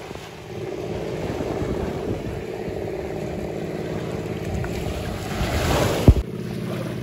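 Wind buffeting the microphone over shallow surf, with water sloshing and a low steady hum underneath. Near the end the noise swells and cuts off abruptly.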